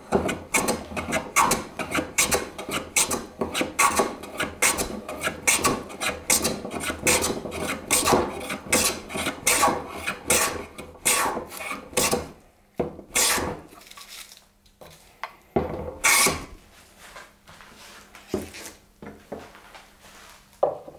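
No. 4 bench plane taking rapid strokes along the edge of a partially air-dried Atlantic cedar board, each stroke a short scraping rasp, about two or three a second. After about twelve seconds the strokes thin out to a few spaced passes.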